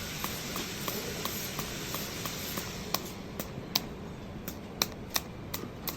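Stainless steel block being machined: a steady hiss with light ticks about three a second, then from about halfway sharper, irregular clicks.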